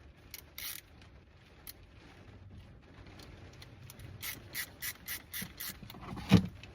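A run of even mechanical clicks, about four a second, then one heavy knock near the end, from hands-on work on the mini bike.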